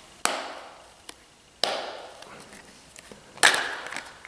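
Plastic clips of a Doogee DG700 smartphone's back cover snapping loose as the cover is pried off by hand: three sharp cracks about a second and a half apart, each fading quickly.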